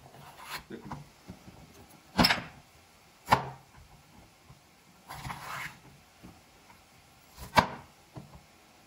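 Scattered knife knocks on a cutting board as peppers are cut open and their seeds removed: a few separate sharp knocks, a second or more apart, with a short rustling scrape about five seconds in.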